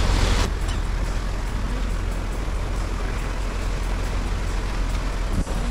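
Motor boat's engine running steadily with a low rumble, under the rushing hiss of water churned up along the hull.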